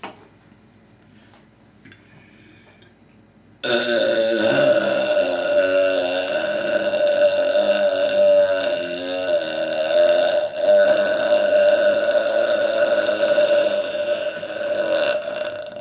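A man's single, very long, loud burp, starting about four seconds in and lasting around eleven seconds. Its pitch wobbles through the middle before it stops.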